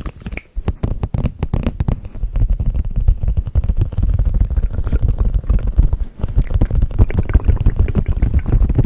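Hands rubbing and tapping directly on the microphone: a dense run of rapid, close crackles and low thumps that grows louder about two seconds in.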